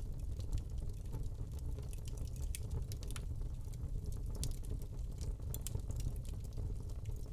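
Wood fire burning in a fireplace: a steady low rumble of flames with irregular small crackles and pops from the log.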